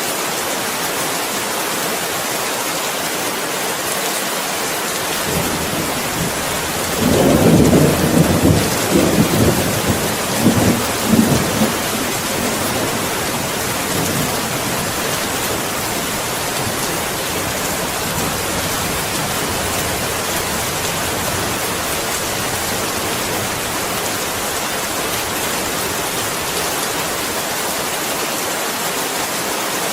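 Steady heavy rain hissing, with a roll of thunder about a quarter of the way in: it builds, rumbles in several pulses for a few seconds and fades back into the rain.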